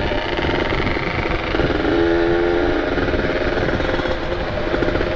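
Kawasaki Ninja RR's 150 cc single-cylinder two-stroke engine running steadily on the move at moderate, held-back revs. It is a freshly ported engine being broken in.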